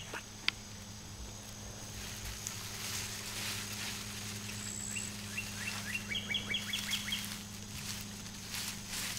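A songbird sings one quick run of repeated, down-slurred chirps for about two seconds, a little past halfway through, over a steady low hum.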